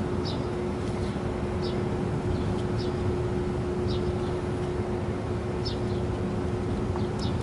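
Steady low background hum of running machinery with one constant low tone, and short high chirps about once a second.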